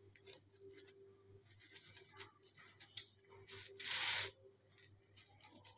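A table knife cutting through a freshly cooked paratha and scraping against the plate beneath it, in short, faint scratchy strokes, with one longer, louder scrape about four seconds in.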